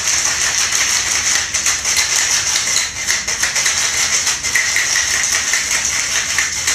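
Ice rattling rapidly and continuously inside a cocktail shaker as a mixed drink is shaken.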